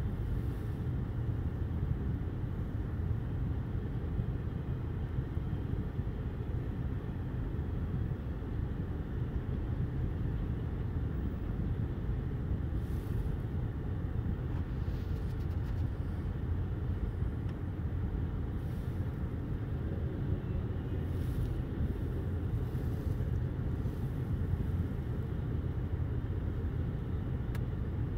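Intermodal freight train's cars rolling past, a steady low rumble muffled by closed car windows, with a few faint, brief high-pitched sounds in the second half.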